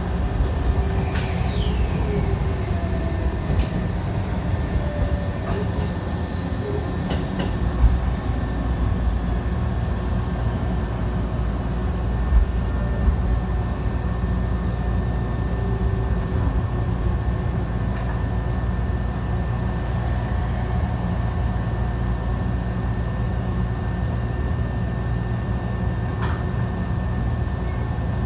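Shibayama Railway 3500-series electric train running, heard from inside the car: a steady rumble of wheels and running gear with faint steady tones, a high whine falling in pitch about a second in, and a few sharp knocks midway as it approaches the terminus.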